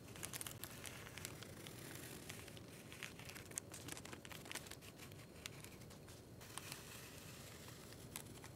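Pencil tracing a design on the paper backing of fusible web: faint, soft scratching with small ticks and rustles of the paper.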